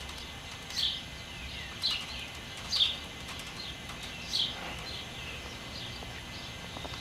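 A bird's short, high, down-slurred chirps repeating about once a second, loudest in the first half, with fainter chirps after that.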